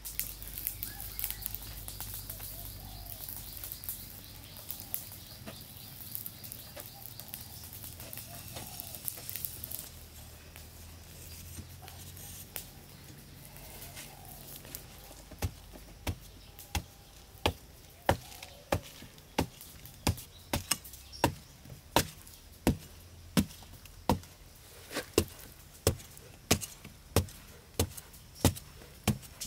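A short-handled hand pick chopping into hard, compacted soil in steady blows, about three every two seconds, starting about halfway through. Before the blows begin there are only faint high chirps.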